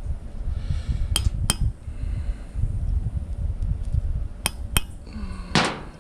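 Sharp metallic clinks from a chainsaw chain and small hand tools being handled: four light taps in two pairs, then a longer, louder metal clatter near the end.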